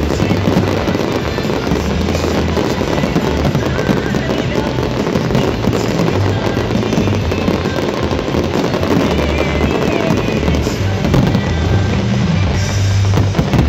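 A fireworks display: a dense, unbroken crackle of many shells bursting at once, mixed with loud music with a heavy bass beat.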